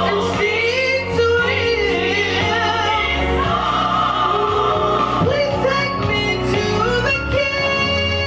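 A woman singing a song with wavering, held notes over instrumental accompaniment with a steady bass line.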